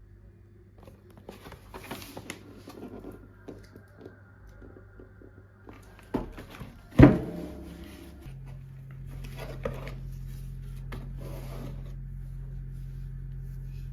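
Toys and packaging being handled during an unboxing: light rustles and taps, then a sharp loud click about seven seconds in, followed by a steady low hum.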